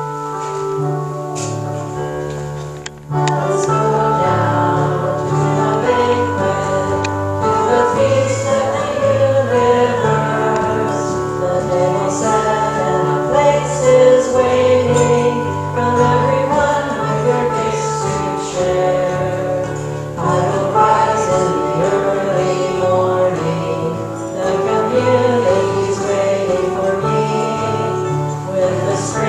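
A hymn sung by several voices over keyboard accompaniment; held keyboard chords lead in, and the singing comes in, louder, about three seconds in.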